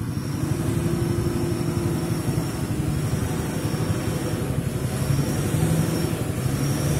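Dump truck's diesel engine running in low gear as it climbs a rutted mud road: a steady low engine drone.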